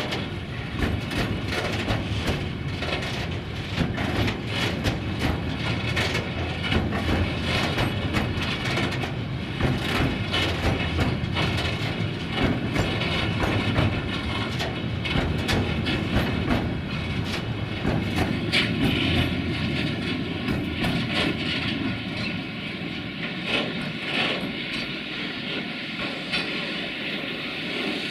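Freight train wagons rolling past, wheels clattering irregularly over rail joints above a low rumble. About two-thirds of the way through, a steady higher whine joins in.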